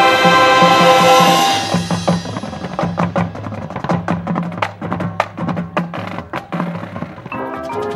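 Marching band with drum line and front-ensemble percussion: a held full-band chord ends about a second and a half in, then a percussion break of sharp clicks and hits over a repeating low drum figure. Held band tones come back in near the end.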